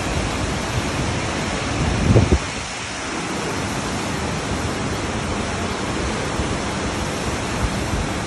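Whitewater of a mountain river rushing over a rocky cascade in a gorge: a steady, even roar. About two seconds in there is a brief low thump, and the roar dips for a moment after it.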